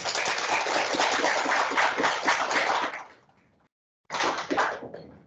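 Audience applauding, dying away after about three seconds; after a brief silence a short second burst of clapping follows.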